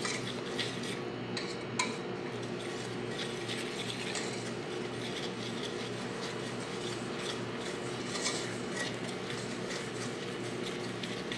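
Wire whisk stirring thick dhokla batter of gram flour, ghee and curd in a stainless steel bowl: a steady run of light scraping and ticking of the wires against the steel, with a small knock about two seconds in.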